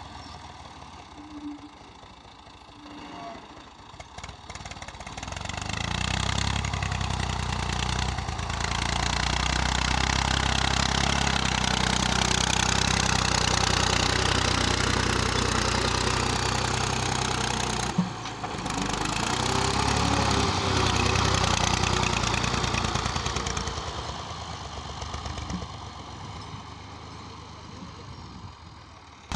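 Massey Ferguson 240 tractor's three-cylinder diesel engine running under load while the tractor pushes sand with a front blade. It is quieter at first, grows louder about six seconds in as the tractor comes close, and fades again near the end.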